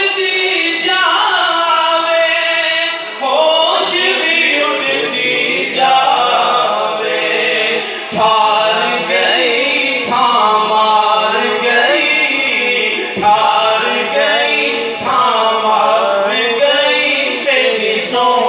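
Naat sharif: a man singing devotional verse without instruments, in long melodic phrases with held, wavering notes.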